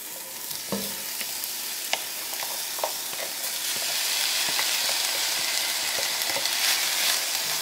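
Minced onion sizzling as it is scraped into hot olive oil in a skillet, the sizzle growing louder as more onion goes in. Light clicks and taps of a silicone spatula against the plastic container and pan run through it.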